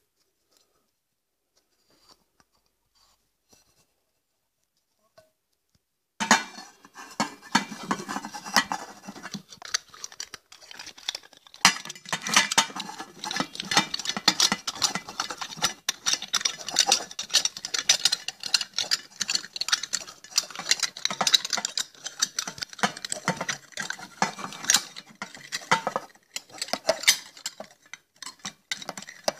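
After about six seconds of silence, a glass pot lid with a metal rim is handled and worked at by hand. A dense run of clinks, taps and scrapes of metal against glass comes from the lid and its handle fitting.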